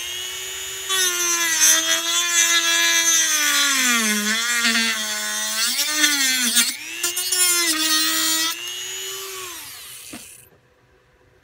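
Dremel rotary tool with a cut-off wheel whining at high speed as it cuts through a small wooden board, its pitch sagging as the wheel bogs in the cut. The cutting noise stops near the end and the motor spins down to a stop.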